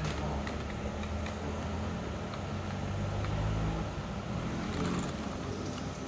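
A few scattered, faint key clicks from an MSI Vigor GK30 gaming keyboard, heard over a steady low hum that is louder than the clicks and swells slightly about three seconds in.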